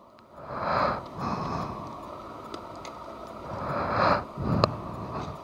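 Breaths and sniffs close to the microphone, several puffs a few seconds apart, with a few faint plastic clicks as the film door of a Fujifilm Instax mini 9 instant camera is opened and handled.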